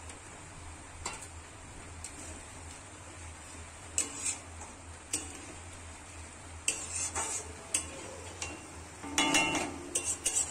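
Spatula stirring egg curry in a metal kadai, scraping and knocking against the pan in short irregular strokes that come closer together and louder in the second half.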